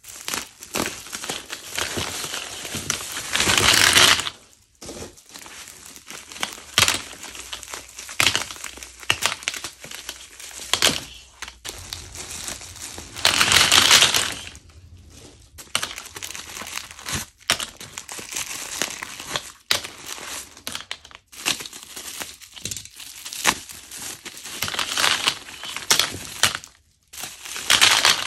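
Plastic bubble-wrap bags crinkling and rustling as they are handled and opened, with short clicks of plastic highlighters being tipped out of a bag into a pile. The rustling is loudest about 3 to 4 s, 13 to 14 s and 25 s in.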